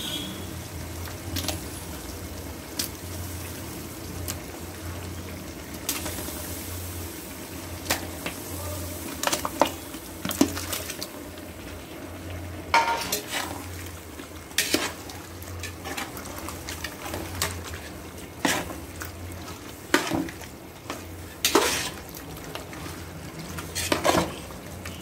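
A metal ladle knocking and scraping against a large metal cooking pot as raw mutton is tipped into frying gravy and stirred, with a sizzle and a steady low hum underneath. The knocks come scattered and grow more frequent in the second half as the stirring gets going.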